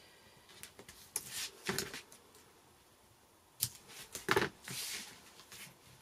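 Hands handling cardstock on a craft mat: a string of short paper rustles and taps, the loudest cluster about four seconds in.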